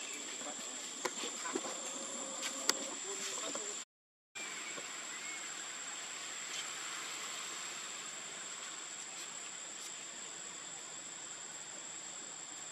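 Insects buzzing outdoors, a steady high tone over a constant hiss. A few faint clicks come in the first few seconds, and the sound drops out completely for a moment about four seconds in.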